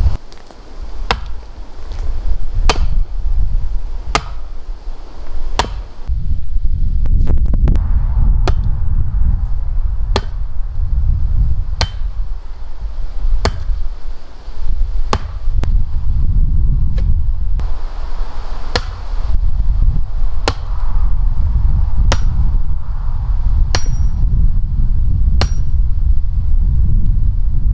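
Hammer blows struck at a steady, even pace, about one every second and a half, each a sharp knock, over a steady low rumble.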